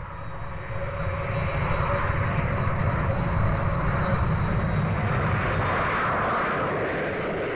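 Hawker Siddeley Dominie's turbojet engines running: a steady rush of jet noise with a faint high whine.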